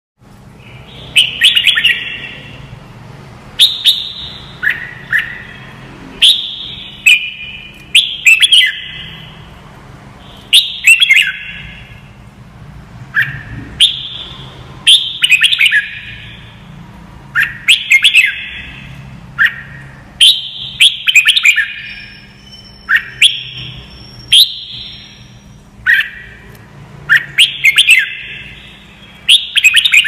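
Red-whiskered bulbul singing: short, quick whistled phrases, repeated every second or two.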